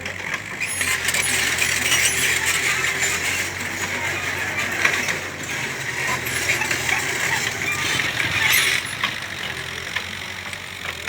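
Mini excavator at work: its engine hums steadily under a loud gritty rattle and scrape of earth and gravel. The rattle starts about a second in and stops near nine seconds.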